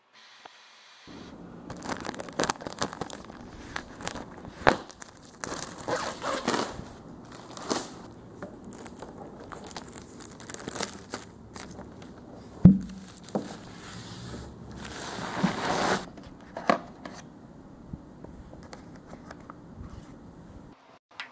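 Plastic crinkling and rustling as it is handled, in irregular crackly bursts, with one low thump partway through. It dies down to quieter rustling for the last few seconds.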